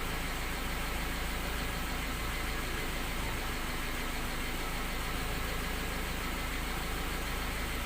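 A Toyota Corolla AE92's 4A-F carbureted 1.6-litre four-cylinder engine idling steadily, with no change in speed.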